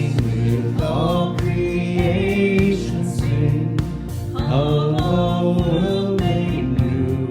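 A sung worship song with instrumental accompaniment and a steady beat.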